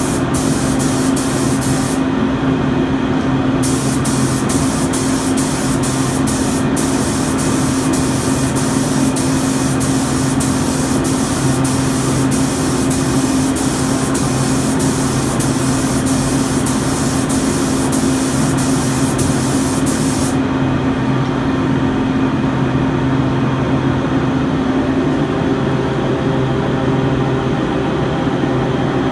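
Top-fed Emerald spray gun hissing as it lays down clear coat, in two passes: a short one at the start, then a long one of about 17 seconds that cuts off about two-thirds of the way through. Under it the spray booth's exhaust fan runs with a steady hum, alone for the last several seconds.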